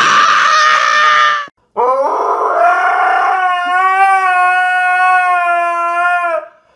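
A husky howling: one long howl of about four and a half seconds that slides up at the start, then holds steady with a slight waver before stopping. Before it, in the first second and a half, a short loud rasping sound.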